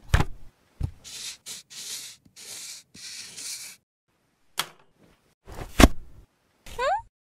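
A string of cartoon sound effects: a sharp knock at the start and another just under a second in, then several stretches of hissing noise lasting about three seconds in all. Next comes a click, a loud thud, and a short rising squeak near the end.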